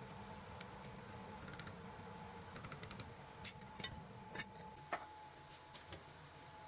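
A scattered series of light clicks and taps, louder and closer together in the middle, over a faint steady hum.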